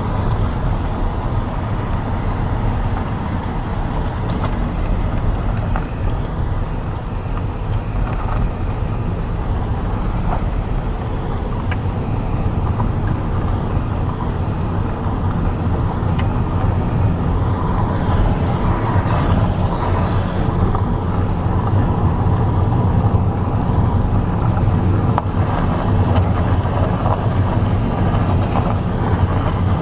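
Car driving, a steady low engine and tyre rumble heard from inside the cabin.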